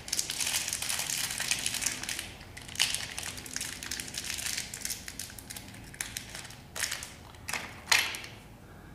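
Crackling, crinkling handling noise with a few sharp clicks, the loudest near the end, while the fan's ground wires are joined at the ceiling box.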